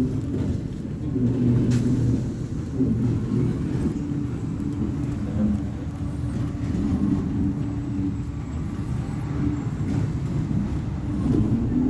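Volvo B58 bus's diesel engine running with a low rumble, its pitch shifting up and down and rising again near the end as it revs up.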